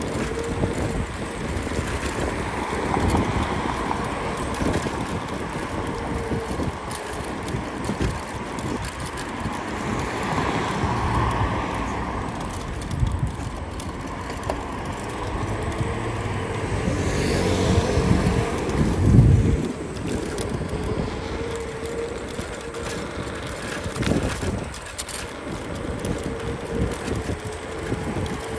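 Scooter riding along a road: a steady high whine over rumbling road noise and wind. A motor vehicle's engine swells as it passes close, loudest about two-thirds of the way through.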